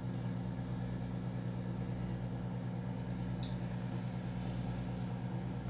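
Microwave oven running with a steady electrical hum while heating a whole egg, with one short faint tick about three and a half seconds in.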